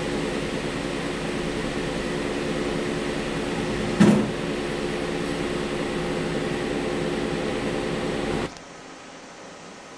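Steady whir and hum of laboratory automation machinery, an automated incubator and plate-handling robot with their fans and motors, with a single clunk about four seconds in. The hum cuts off abruptly about eight and a half seconds in, leaving a quieter steady hiss.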